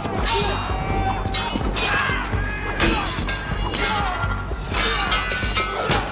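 Steel weapons clashing, sword against halberd, about six sharp strikes each leaving a high metallic ring, over a dramatic film score.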